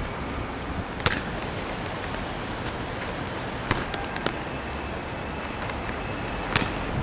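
Steady wind rushing on the microphone, broken by four sharp knocks of a basketball striking hard surfaces, the loudest about a second in and near the end.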